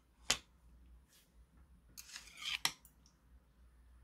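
Metal chopsticks clicking against a porcelain bowl and each other as food is picked up. There is a sharp click just after the start, a short scraping rustle about two seconds in, and another sharp click right after it.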